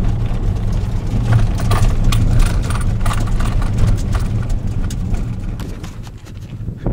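Car driving on a gravel road heard from inside the cabin: a steady low road rumble with gravel crackling and ticking under the tyres. It grows quieter near the end.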